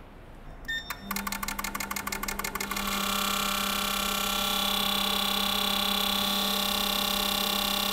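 Fuel injectors from a 2.0 TFSI petrol engine firing on an injector cleaner and tester during a spray test that checks all four for differences in delivery. After a short beep, the machine hums steadily and the injectors click rapidly. About three seconds in, the clicking merges into a steady buzz.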